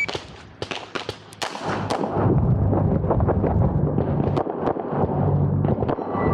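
Competition handgun shots in quick strings right after the shot timer's start beep, several in the first two seconds, then more over a loud low rumble. A short electronic beep sounds near the end.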